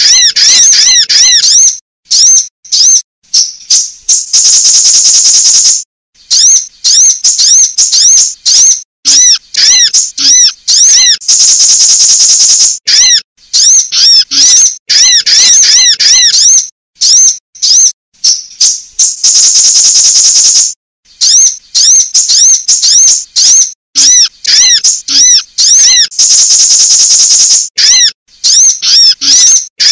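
Loud sunbird calls from a lure recording. Rapid runs of short, arched, high chirps are broken every six to eight seconds by a long high trill lasting about one and a half to two seconds.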